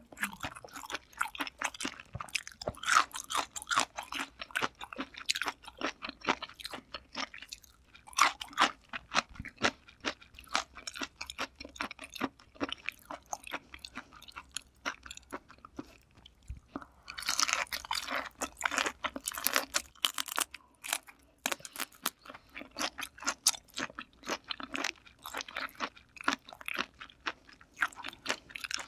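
Close-miked chewing of raw kuruma prawn, wet crunching and smacking in quick, irregular bites. About seventeen seconds in comes a denser stretch of crackling lasting a few seconds.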